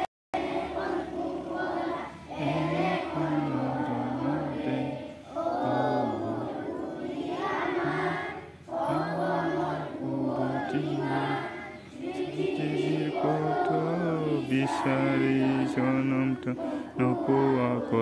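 Schoolchildren singing an assembly prayer together as a choir, in sung phrases with short pauses between them.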